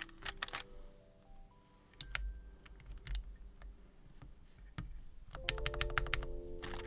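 Plastic clicks of keys on a full-size mechanical keyboard being pressed, a few scattered presses at first, then a quick run of many presses for the last second and a half, over background music.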